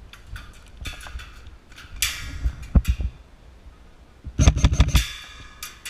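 Airsoft electric rifle firing several full-auto bursts of rapid clicking shots: a short burst about a second in, a longer one around two to three seconds, and another after four seconds.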